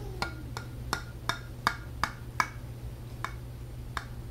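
A kitchen knife chopping down through baked lasagna, its tip knocking against the bottom of a ceramic casserole dish: about ten sharp clicks, roughly three a second, thinning out toward the end.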